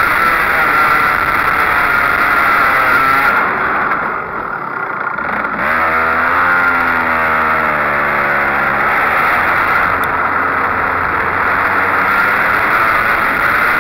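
Onboard sound of a racing go-kart engine running at high revs. The engine drops off about three and a half seconds in, then from about six seconds its revs climb steadily again.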